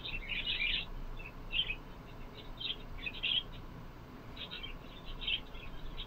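Small birds chirping in short, repeated clusters, heard through a home security camera's microphone over a faint background hum.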